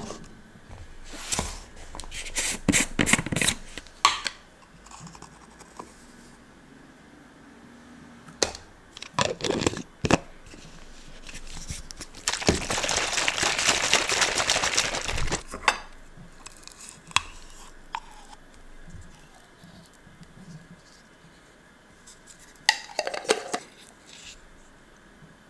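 Pink plastic protein shaker cup shaken hard for about three seconds to mix whey protein powder, heard as a dense, steady shaking noise and the loudest sound here. Before it come scattered clicks and knocks of the cup being handled. Near the end, a spoon scrapes peanut butter onto a plate of bread.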